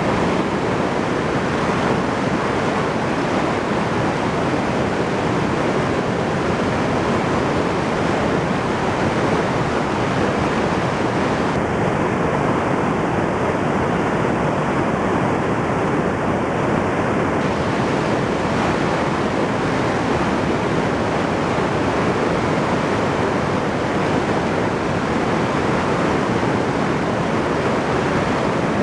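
River in flood, its muddy water rushing in a loud, steady, unbroken noise, swollen by typhoon rain.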